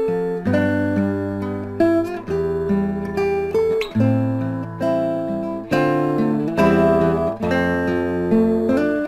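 Background music: an acoustic guitar strumming, striking a new chord roughly every second.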